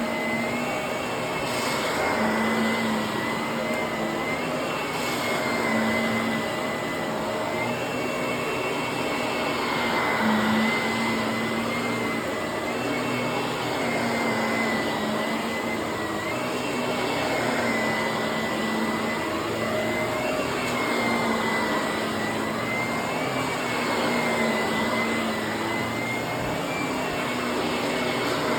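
Vacuum cleaner running continuously with a high motor whine over a lower hum, its pitch and loudness wavering gently every few seconds as it is worked back and forth.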